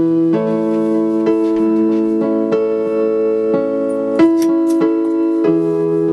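Background music of sustained chords that change every one to two seconds.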